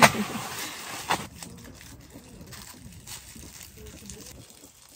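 Disposable plastic gloves crinkling as hands peel a roasted sweet potato. A loud rustle comes at the start, a sharp one about a second in, then quieter handling rustles.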